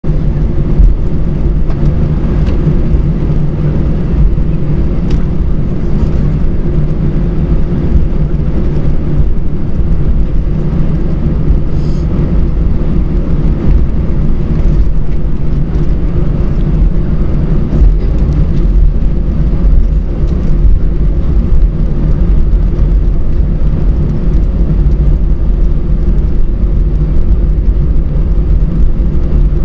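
Steady low rumble of an Airbus A321 airliner heard from inside the cabin as it taxis on its jet engines, with no spool-up or change in pitch.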